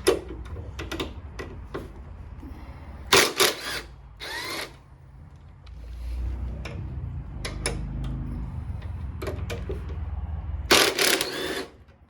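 A motorcycle's rear axle hardware being removed with a T40 star bit and a 1/2 inch open-end wrench. There are sharp metal clanks and rattles of the tools and bolts, and a power driver runs for several seconds in the second half.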